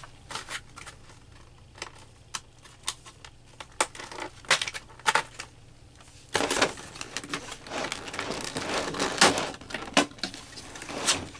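Clear plastic clamshell packaging being handled and pried open: scattered sharp clicks and snaps of the plastic, then from about six seconds in a louder, denser run of crackling and clicking as the tray is worked apart.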